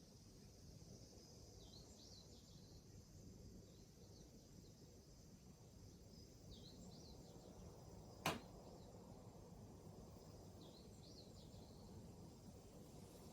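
Near silence: faint room tone with a few small clusters of faint high chirps, and a single sharp click about eight seconds in.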